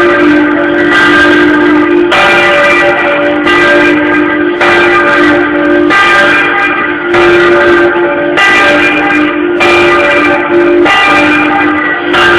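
A church bell rung a slancio, swung high in its tower so that it strikes about once every second and a quarter. Each stroke rings on over the last, so the ringing never stops.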